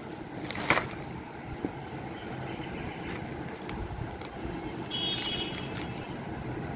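Gloved hands settling a fern's root ball into a terracotta pot and pressing the soil: a short crackling scrape just under a second in and a few sharp scrapes or squeaks about five seconds in, over a steady background rumble.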